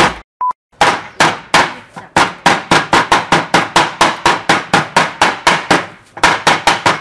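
Small hammer pounding eggshells in a plastic bag on a wooden board: rapid repeated blows, about four a second, with a brief pause about six seconds in before the blows resume slightly faster, crushing the shells into fine bits.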